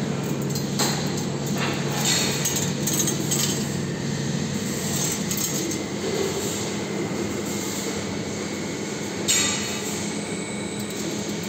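3D CNC wire bending machine running: a steady motor hum with metallic clinks and rattles as the steel wire is fed and bent. The hum changes pitch about four seconds in, and there is a sharp clank about nine seconds in.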